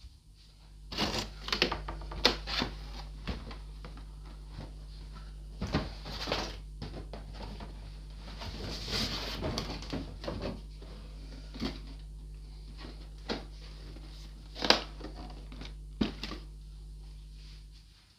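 Cardboard model-kit boxes being handled, lifted out of a large outer box and set down: irregular knocks, scrapes and rustling of cardboard, with a longer stretch of rustling about halfway through.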